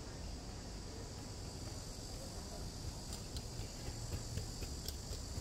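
Steady high-pitched insect drone over a low street rumble, with a few faint clicks a little past halfway.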